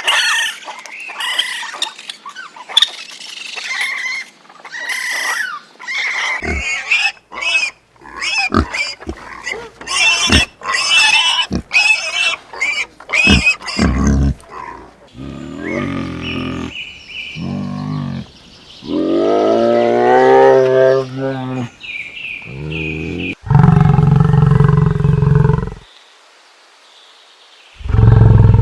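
A run of different animal calls, cut one after another. High squeaks and chirps fill the first half, then longer pitched cries follow. Two loud deep calls come near the end.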